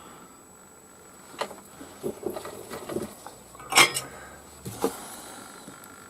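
Scattered small clicks and taps from fitting a resistor into an electronics kit's circuit board, with the sharpest click a little under four seconds in.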